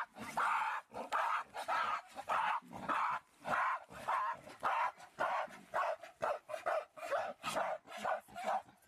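An animal barking in short, repeated calls, about two a second.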